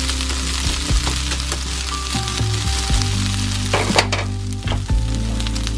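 Shredded potatoes frying in oil in a nonstick pan, sizzling steadily while a wooden spatula stirs and scrapes them, with a few knocks of the spatula on the pan. The sizzle thins a little about four seconds in.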